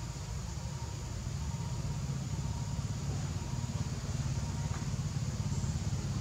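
Low rumble of a running motor engine, pulsing rapidly and growing slowly louder.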